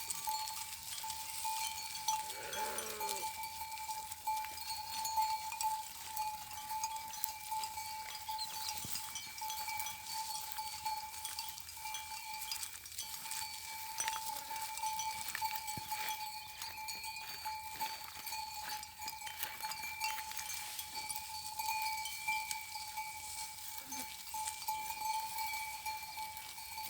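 Bells on grazing livestock clanking irregularly, with one bleat from the herd about two to three seconds in, over a steady high-pitched tone.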